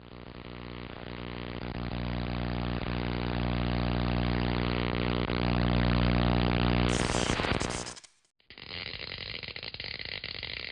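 A steady, low-pitched mechanical drone like a running engine, swelling louder over several seconds and cutting off about eight seconds in. After a brief gap, a different, noisier scraping sound follows.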